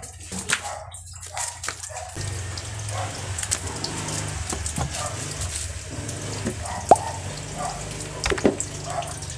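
Rustling and irregular sharp clicks of nylon fishing line being handled and laid over a plastic bucket, the loudest click about seven seconds in. A steady low hum runs under it from about two seconds in.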